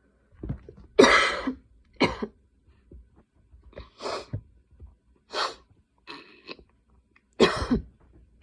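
A woman's coughing fit: a run of coughs, roughly one a second, the loudest about a second in and again near the end, with short breaths between.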